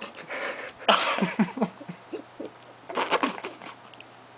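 A person making silly wordless noises with mouth and tongue: breathy bursts at the start, a loud run of short pitched yelps about a second in, and another burst about three seconds in.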